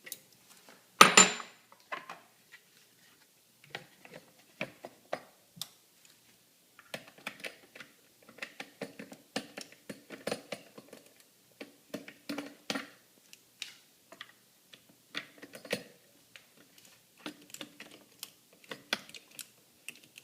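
Small metal clicks, taps and clinks of hand tools and fittings being handled while refitting an air compressor's regulator manifold, with one louder clank about a second in.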